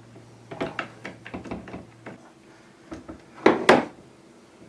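Hand tools and metal amplifier parts clicking and knocking on a workbench during disassembly. A louder double knock comes about three and a half seconds in, like a tool or part set down.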